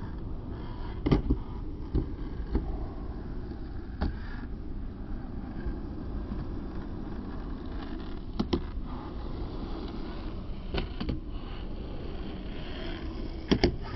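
Wind rumbling steadily on the microphone. A few short, scattered knocks and clacks come over it: one about a second in, a few more over the next several seconds, and a close pair near the end.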